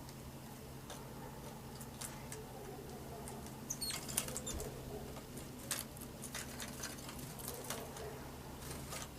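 Birds moving about: scattered light taps, scuffles and pecking sounds, with a few brief high chirps about four seconds in.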